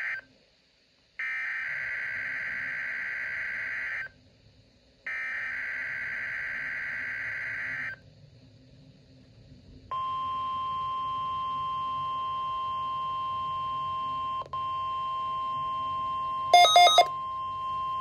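A Midland weather alert radio's speaker playing the NOAA Weather Radio weekly test signal: the tail of one screechy burst of SAME digital header data, then two more bursts about 3 s long with about a second of silence between them. After a short pause, the steady 1050 Hz warning alarm tone starts about halfway in and holds. A brief, very loud electronic beep from the radio cuts in near the end.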